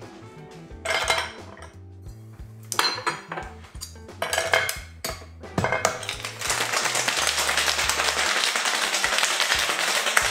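Ice cubes clattering into a glass in three scoops, then a sharp knock as a metal shaker tin is seated onto the mixing glass. About six seconds in, the Boston shaker starts rattling hard and continuously with ice as the cocktail is shaken.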